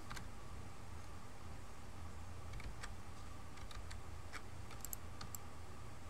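Sparse, light clicks of a computer keyboard and mouse over a low steady hum: one click right at the start, then a scattered run of about a dozen clicks from roughly the middle to near the end.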